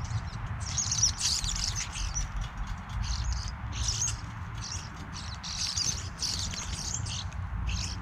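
European starlings chattering: a string of short, high call bursts with brief gaps between them, over a low steady rumble.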